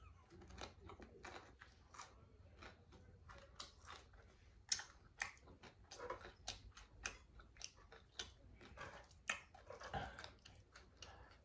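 A person chewing food close to the microphone: faint, irregular wet mouth clicks and smacks, several a second.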